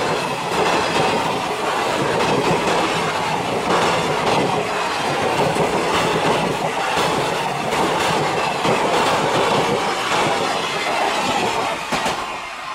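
ICF passenger coaches of an Indian express train passing close by at speed, the wheels clattering over the rail joints in a steady clickety-clack. The sound drops away near the end as the last coach moves off.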